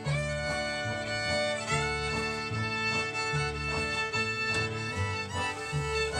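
Old-time string band playing an instrumental break: the fiddle carries the melody in long bowed notes over upright bass, banjo and acoustic guitar.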